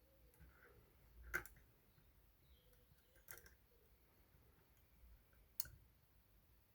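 Lock-picking tools working the levers of a Union 3G110 five-lever lock: three sharp clicks, the first about a second in and the loudest, with a few fainter ticks between.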